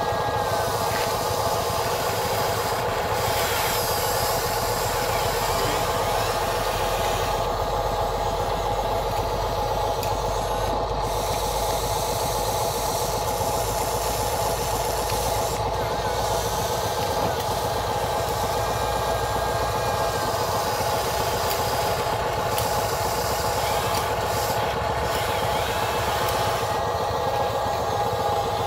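Electric motors and gearboxes of a Huina 580 RC excavator whining in a steady drone as it digs and swings, the pitch shifting slightly now and then.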